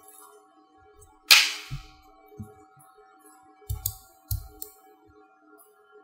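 Small magnetic balls snapping and clicking together as a ball-magnet sculpture is pressed and handled. One sharp snap comes a little over a second in, then several softer clicks, over faint steady background music.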